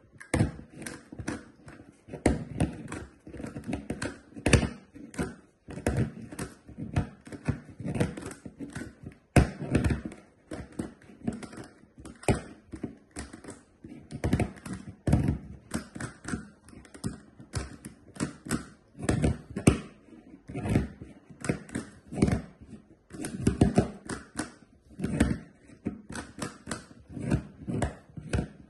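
GAN Megaminx being turned one-handed while it rests on a wooden table: a fast, irregular run of plastic clicks and clacks as the faces turn, with louder knocks now and then.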